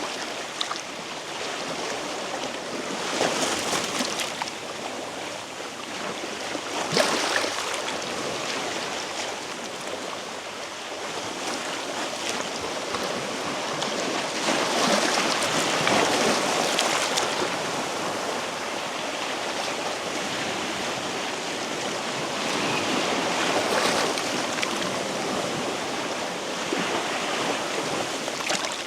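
Sea waves washing against a rocky shore, swelling into louder surges several times as waves break.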